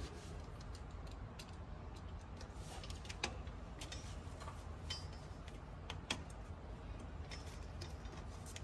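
Faint, scattered clicks and ticks of air-line tubing and fittings being handled and pushed together by hand, over a low steady hum.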